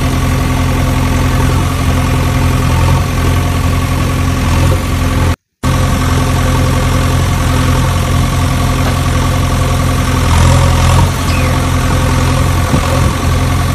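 An engine idling steadily, a low, even drone that cuts out completely for a moment about five seconds in and then carries on.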